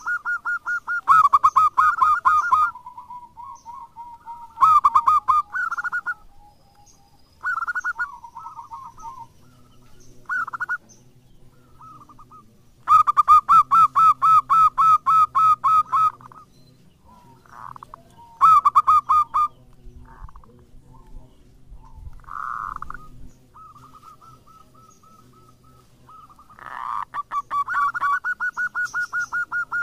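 Zebra dove (perkutut) cooing: about eight bursts of fast, repeated staccato notes, each burst one to three seconds long, with short pauses between.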